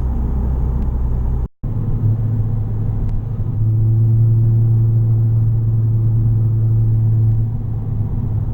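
Straight-piped 2017 Honda Civic Sport hatchback, heard from inside the cabin while driving: a steady low exhaust drone. The sound drops out for a moment about a second and a half in. From about three and a half seconds the note grows louder and holds an even pitch, as a CVT keeps the revs constant, then eases back near the end.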